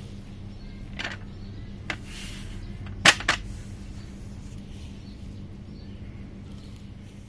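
A few short, sharp knocks and clicks, the loudest a quick double knock about three seconds in, over a steady low hum.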